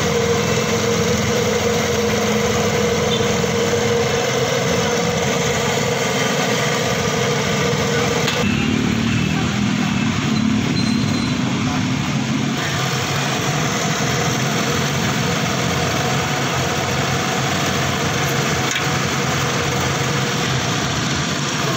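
Cotton candy machine running, its motor and spinner head giving a steady mechanical hum. The sound shifts abruptly about eight seconds in and again about four seconds later.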